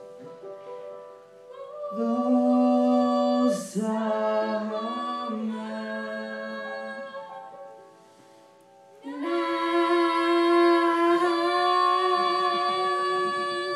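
Singing with music: long held sung notes, a brief lull about eight seconds in, then another long held note.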